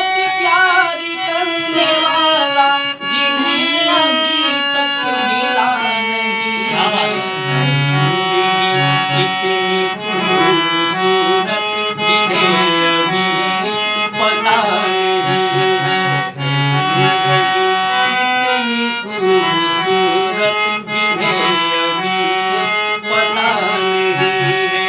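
Harmonium playing a ghazal melody: held reed chords that change note by note, with low bass notes now and then. A man's voice sings along at times.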